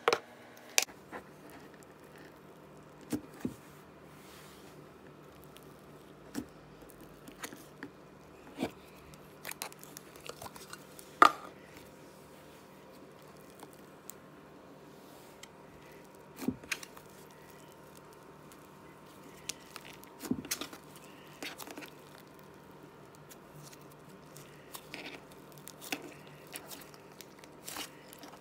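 Hands pressing, spreading and folding thick butter slime mixed with small plastic beads, making scattered sticky pops and clicks every second or two, one louder pop about eleven seconds in. A couple of clicks from the jar's plastic lid come right at the start.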